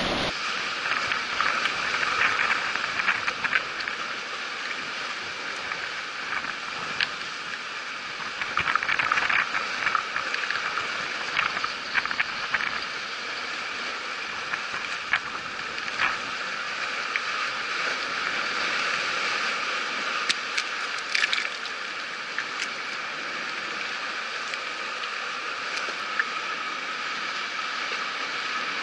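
Sea waves washing over a rocky shoreline: a steady hiss of foaming water, with several surges of crackling splash as waves break on the rocks.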